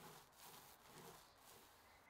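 Near silence, with faint soft swishes of a small foam roller spreading stain back and forth across an MDF cabinet top, about two strokes a second.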